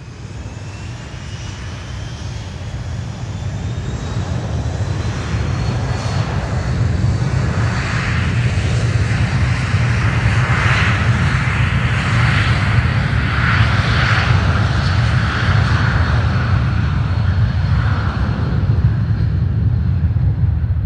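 Airplane engine running up: a deep rumble under a thin whine that rises in pitch and grows louder over the first several seconds, then holds steady at full power.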